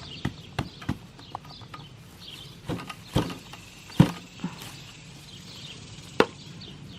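Irregular knocks and thuds from potatoes and soil being handled while potatoes are dug out of a container by hand. The loudest knocks come about four seconds in and just past six seconds.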